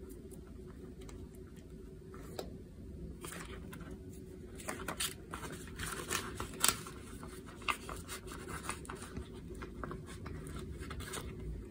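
Paper bills and clear plastic cash-envelope pouches being handled in a ring binder: quiet rustling and crinkling with scattered small taps and ticks, over a faint steady hum.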